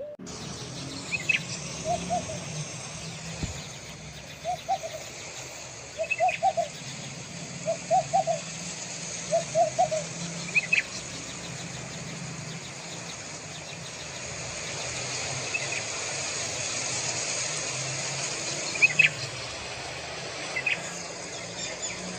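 Birds calling over a steady low hum and hiss: short clusters of low two- and three-note calls every second or two during the first half, and single sharp high chirps every few seconds throughout.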